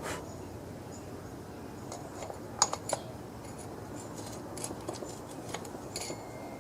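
Light metallic clicks and clinks of small chainsaw clutch and oil-pump parts being handled and fitted by hand, with a few sharper clicks between about two and a half and three seconds in, over a steady low background hiss.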